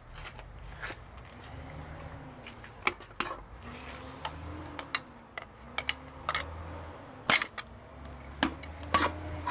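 Hammer blows on a connecting rod, driving a piston and rod out of a Big Cam Cummins diesel engine block: a string of sharp, irregular metallic knocks, the loudest about seven seconds in, over a low steady hum.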